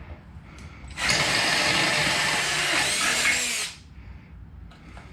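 Power drill boring through metal with a small bit, a pilot hole before stepping up to larger bits. It runs in one steady burst of a few seconds starting about a second in, then stops.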